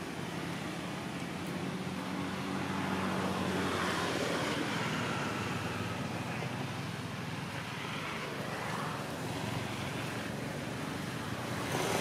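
Motor vehicle traffic noise: an engine running past, with a steady low hum that swells a little in the middle.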